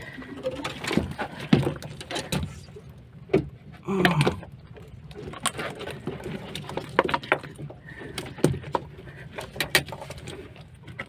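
Scattered sharp knocks and clicks of gear handled on a small fishing boat, with a brief voice about four seconds in.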